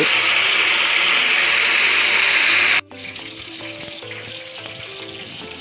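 Steady loud hiss of a large aluminium pot of sunflower oil heating on its burner, before anything is added. It cuts off abruptly a little under three seconds in, leaving a much quieter stretch with faint music.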